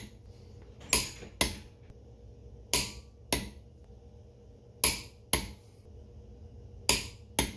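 Click-type torque wrench tightening wheel lug nuts and clicking as each reaches its 95 ft-lb setting: a sharp click followed about half a second later by a second one, four times over as the wrench moves from nut to nut.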